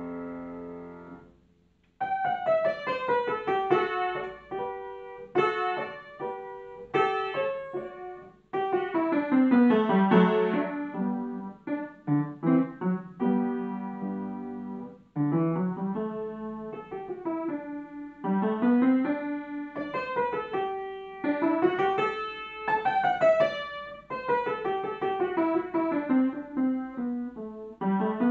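Upright piano played solo. A held chord dies away into a brief pause, then a new passage begins about two seconds in, with runs of notes sweeping down and back up.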